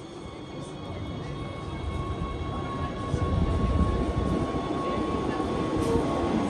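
Wengernalpbahn rack-railway train running slowly past a station, heard from a window of the train. A low rumble grows steadily louder, with a steady high-pitched tone held throughout.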